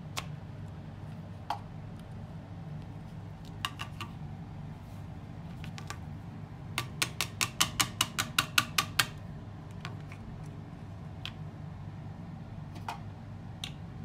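Clicking of the vacuum's plastic filter and dust-cup parts being handled and twisted in the hands: a few single clicks, then a quick run of about a dozen clicks over two seconds about seven seconds in, over a steady low hum.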